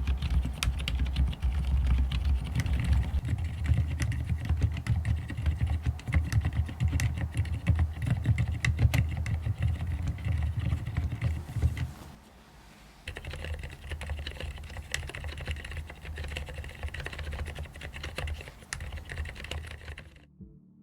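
Typing on a mechanical keyboard with fully lubricated Cherry MX Silent Red switches: a fast run of soft, muted keystrokes, mostly the sound of fingers striking the keycaps. The typing pauses briefly about twelve seconds in and stops just before the end.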